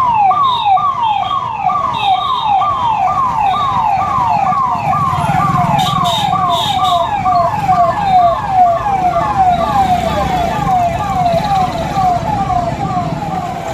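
Police siren in a fast yelp, each cycle a quick falling sweep repeating about three times a second, over a low rumble of vehicles.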